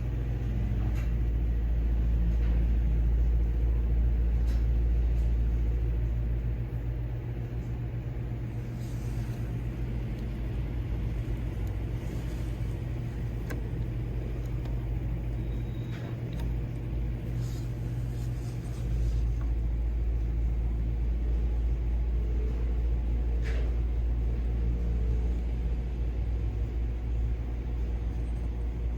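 1940s Westinghouse 12-inch metal desk fan running, its electric motor humming steadily while the blades' air rumbles on the microphone. The rumble eases for a stretch in the middle and then comes back, with a few faint clicks.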